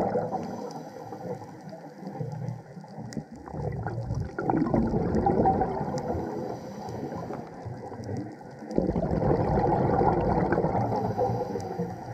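Scuba regulator exhaust bubbles, heard underwater: bursts of rushing bubbling a couple of seconds long, about every four seconds as the diver breathes out, with quieter stretches between.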